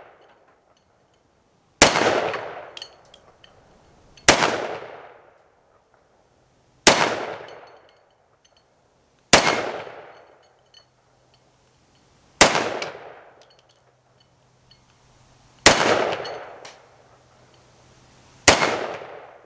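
Seven single pistol shots from an FK BRNO pistol firing 7.5 FK rounds, spaced about two and a half to three seconds apart, each a sharp crack with a short echoing tail.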